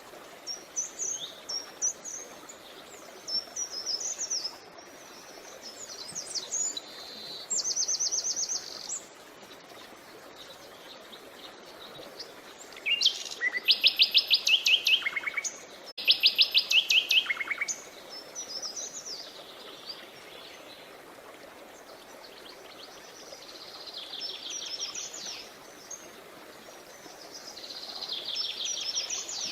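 Songbirds chirping and singing: short high chirps and rapid trills, with the loudest trills about halfway through, over a steady background hiss.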